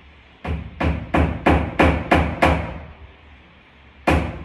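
Hammer driving a nail into a wooden door: seven quick strikes at about three a second, a pause of about a second and a half, then a fresh run of strikes starting near the end.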